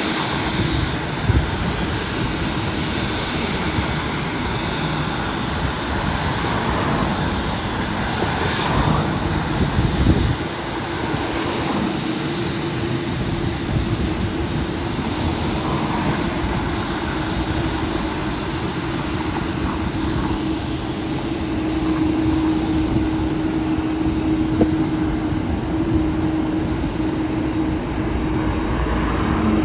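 Jet airliner engine noise: a steady wash of noise with a constant hum that grows louder in the second half.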